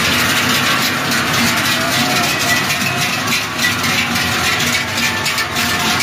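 Many large cowbells on a passing herd of cows, clanging and ringing together in a loud, continuous, irregular jangle.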